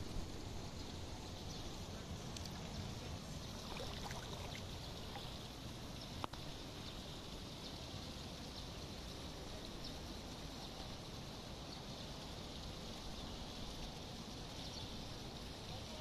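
Steady splashing of pool fountain water, with a single sharp click about six seconds in.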